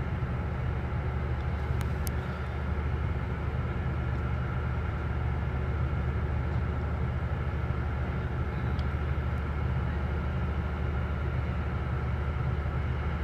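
Steady low engine rumble aboard a ferry under way, with a faint even hum above it.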